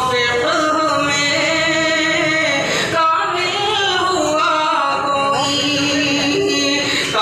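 Voices singing a farewell tarana (alvida'i tarana), a devotional seminary song, with long, wavering held notes. No instruments stand out.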